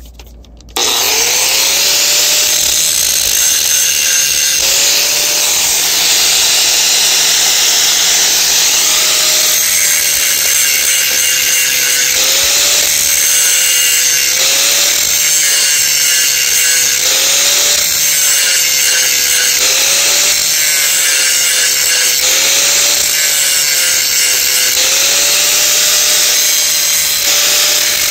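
Handheld power tool starting about a second in and running continuously, its motor pitch sagging and recovering every two to three seconds as it is pressed into the work, over a harsh high hiss of cutting or grinding.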